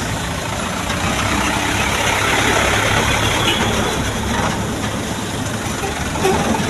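Heavy vehicle engine idling steadily, with a deep low rumble.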